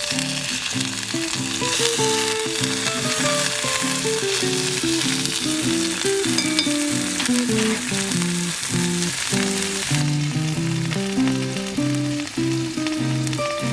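Food sizzling and frying in a pan, a steady hiss, under background music with a slow melody of plucked or keyed notes.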